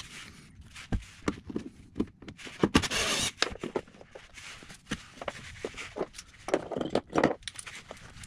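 Series of clicks, taps and short scrapes from a hand tool working the screws of a car's plastic under tray, with two louder rattling clusters about three and seven seconds in.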